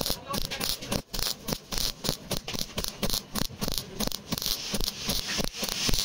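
MIG welder crackling as short stitch welds are laid along a car door's sheet-metal seam. The arc starts and stops in quick, irregular bursts, several a second.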